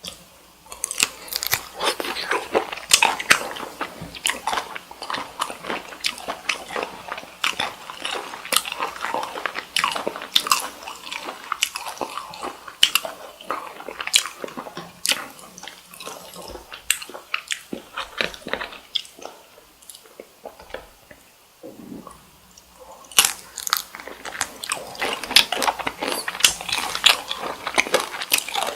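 Close-miked chewing of cooked cocktail shrimp: wet, snappy bites and smacking mouth sounds. The chewing drops off briefly about three quarters of the way through, then starts again.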